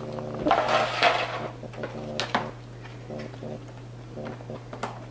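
Parts of a phone stand being handled during assembly: a sliding scrape about a second in, then a few sharp clicks, over a steady electrical hum.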